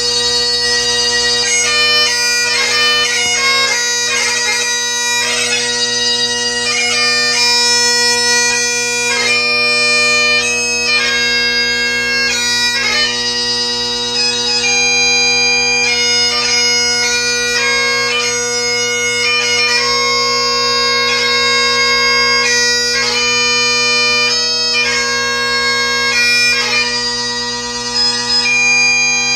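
Great Highland bagpipe played solo: the drones sound steadily underneath while the chanter plays a melody that changes notes quickly. The sound dips briefly near the end.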